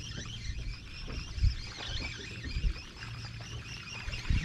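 Wind buffeting the microphone as a low rumble over a steady hiss on open water, with a couple of short soft thumps, one about a second and a half in and one near the end.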